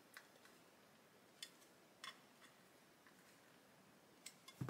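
A few faint ticks and clicks of a small screwdriver turning a tiny countersunk screw into a plastic model door, with a slightly louder cluster of clicks near the end and near silence between.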